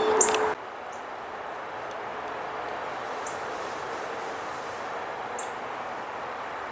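Steady outdoor background noise with a few faint, short, high bird chips. A louder sound with a steady hum cuts off abruptly about half a second in.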